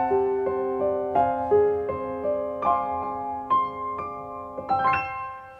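Soft background piano music: a slow melody of single struck notes over a held low note, growing quieter, with a final chord struck near the end and left to ring.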